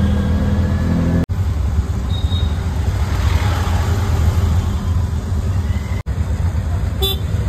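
Steady low rumble of a moving vehicle and road traffic. It drops out for an instant twice, about a second in and again near six seconds.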